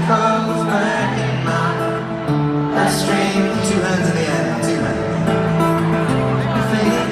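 Live pop song playing: acoustic guitar with held, wordless vocal lines, no lyrics being sung.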